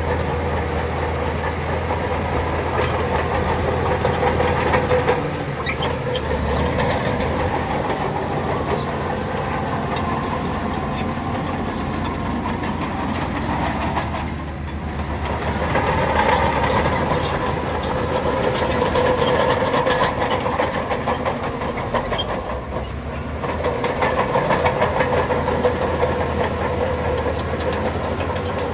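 Bulldozer's diesel engine working under load, with its steel crawler tracks clattering. It eases off briefly about halfway through and again near the three-quarter mark, then picks up again.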